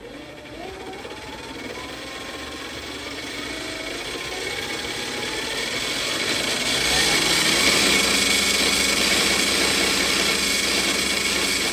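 Hangkai 48V 1200 W electric outboard motor, overvolted on a 72 V battery, spinning its propeller up to full throttle out of the water. Its whine climbs in pitch and grows louder over the first six or seven seconds, then holds steady at its loudest, well above 8,500 RPM.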